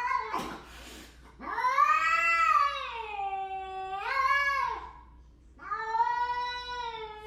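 A cat yowling: three long, drawn-out yowls that bend up and down in pitch, after a short noisy rustle at the start.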